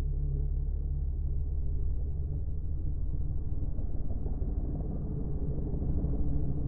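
A BMW drift car's engine running at steady revs as the car slides sideways, heard as a low, steady rumble.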